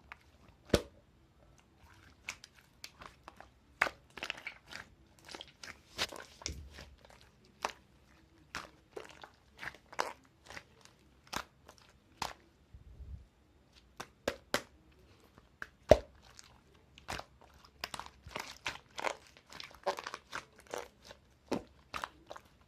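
Slime being squeezed and pressed by hand, giving irregular sharp crackling clicks and pops a few times a second, with one louder pop about two-thirds of the way through.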